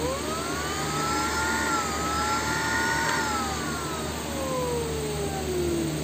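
Mi handheld vacuum cleaner's motor switched on, its whine rising quickly in pitch as it spins up. It runs for a few seconds with a brief dip in pitch, then is switched off and the whine falls slowly as the motor winds down.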